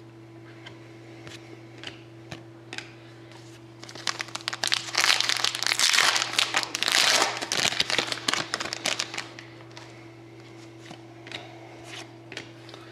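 Foil trading-card pack wrapper crinkling loudly for about five seconds as hands open it, from about four seconds in. Before and after, soft clicks of cards being handled, over a steady low hum.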